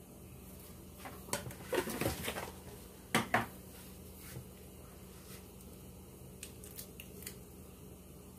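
Small kitchen handling noises: a flurry of rustles and light clicks, then two sharp knocks in quick succession about three seconds in, and a few faint ticks later, over a steady low hum.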